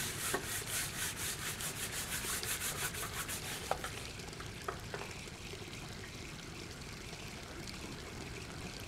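Quick rhythmic scrubbing strokes on a tiled bathroom floor, about five a second, stopping about four seconds in. After that only a faint steady hiss remains, broken by a couple of light knocks.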